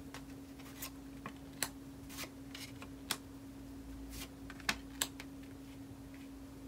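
Tarot cards being laid down by hand one after another: a series of short taps and slides of card on the table, over a steady low hum.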